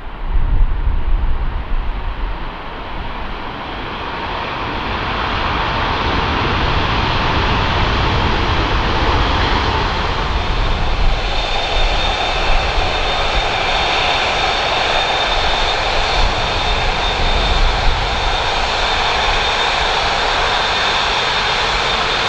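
Airbus A380's four turbofan engines on landing: a loud jet rush that swells over the first several seconds and then holds steady. A high whine joins it about halfway through. Wind buffets the microphone at the very start.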